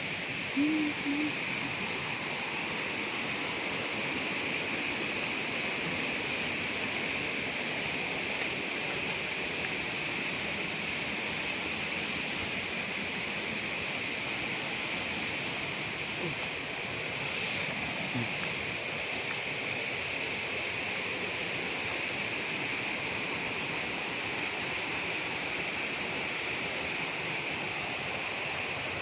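Steady rush of water from a waterfall or stream, with a brief low hoot-like call about a second in.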